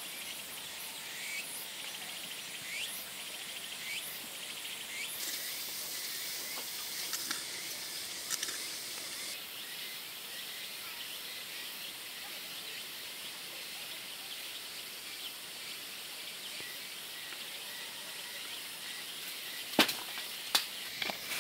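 Outdoor ambience: a steady high hiss with scattered bird chirps through the first half, then a few sharp clicks near the end.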